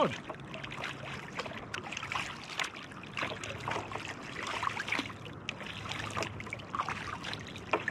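Kayak paddle strokes: a double-bladed paddle dipping on alternate sides, with water splashing and dripping off the blades in irregular bursts.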